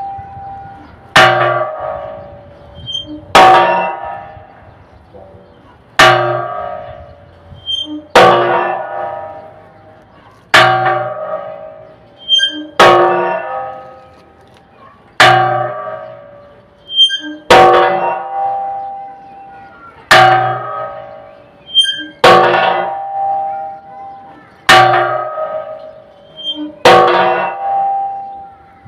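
Large church bell, the belfry's cracked great bell, swung back and forth in a bandeo so its clapper strikes it about once every two and a quarter seconds, each stroke ringing and fading before the next.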